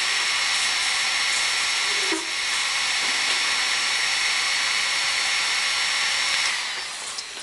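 Electric heat gun blowing steadily with a hissing fan noise and a faint high whine, heating the engine case around the bearing retainer bolt to loosen its Loctite. It winds down and stops near the end.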